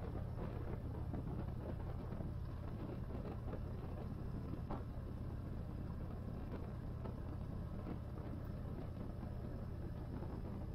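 Yamaha Raider 1850's air-cooled V-twin engine running at a steady cruising pace, with wind and road rush on the rider's camera.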